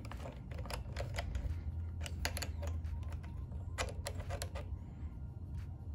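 Scattered light metal clicks and taps of a small wrench tightening the lock nut on the throttle cable at the carburetor of a 52cc two-stroke outboard motor, over a low steady hum.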